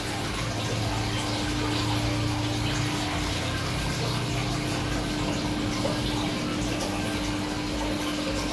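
Aquarium water pump running with a steady hum over the even wash of circulating water.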